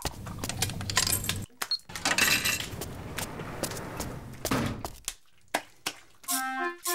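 Scattered clinks and clatter of dishes and utensils, with a few short musical notes near the end.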